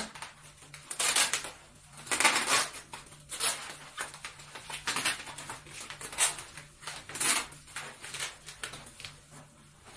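Stiff wrapping paper rustling and crinkling as the sheets are handled and pressed into place, in irregular bursts about once a second, the loudest in the first few seconds.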